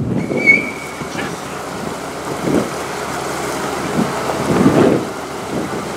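Wind gusting on the microphone, with faint voices.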